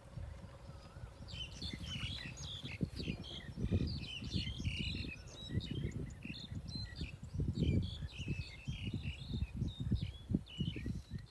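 Small birds chirping in many short, quick calls, over irregular low thuds and rumble close to the microphone.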